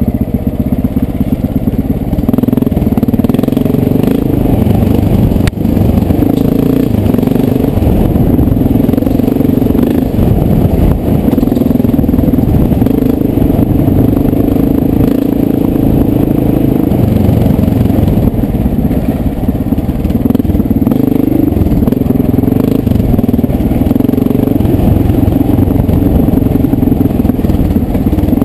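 1989 Honda XR600's single-cylinder four-stroke engine running under load on a dirt trail, its pitch rising and falling as the throttle is opened and closed. A single sharp knock about five seconds in.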